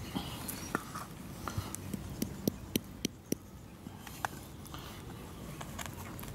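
Shells of boiled quail eggs cracking as they are peeled by hand: small, sharp, irregular clicks and crackles, about a dozen of them.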